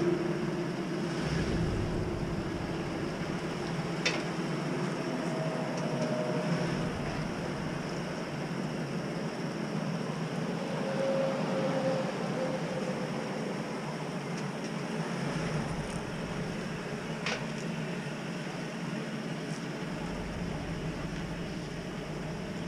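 Pickup truck rolling slowly on new all-terrain tires, a steady rumble with a couple of sharp clicks.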